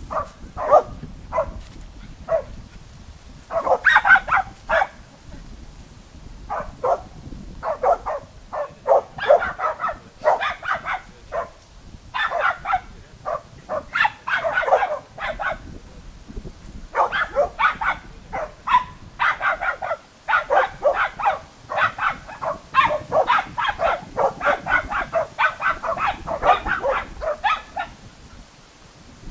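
Terriers barking at a wild boar they are holding at bay: a few separate sharp barks at first, then quick, almost unbroken runs of barking through the second half.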